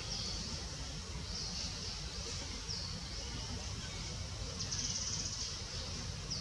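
Insects chirping in the background: short, high, buzzy calls repeating about once a second, one longer pulsing trill about five seconds in, over a low steady rumble.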